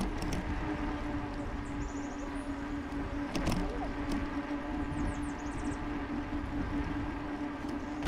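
Electric bike riding along a paved path: a steady motor whine at one constant pitch over wind and tyre noise, with a single click about halfway through.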